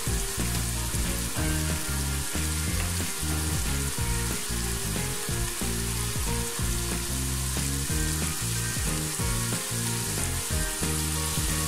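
Chopped onion, onion paste and ginger paste frying in mustard and soybean oil in a pot, sizzling with a steady hiss. Low background music plays underneath.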